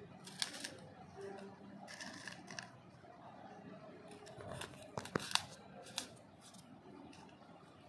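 Small sharp clicks and scratching as gloved fingers work a beetle specimen against a polystyrene foam mounting board, with a cluster of clicks about five seconds in.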